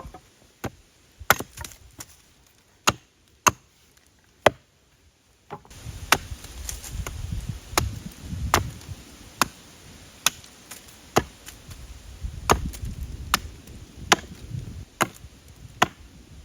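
Repeated sharp chopping strikes on wood, roughly one or two a second, at an uneven pace. About six seconds in, a steady low rushing noise comes in beneath the strikes.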